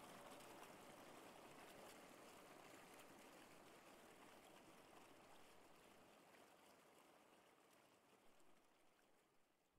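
Faint rain ambience, a soft even hiss with scattered tiny drop ticks, fading out to near silence.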